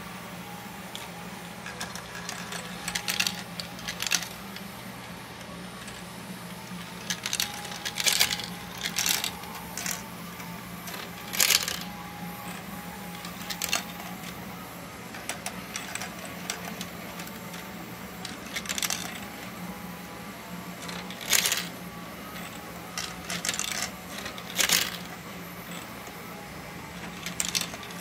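3D-printed plastic marble machine running: steel marbles click and clatter irregularly, in ones and short clusters, as they drop and roll through the plastic stair lift and tracks, over a steady low hum from its small electric motor and plastic gears.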